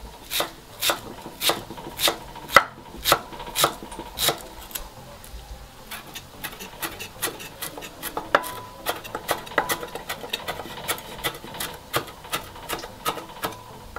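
A cleaver chopping fresh parsley on a wooden cutting board: a steady run of knocks of the blade on the wood, about two a second at first, becoming quicker and lighter about halfway through as the herbs are minced finer.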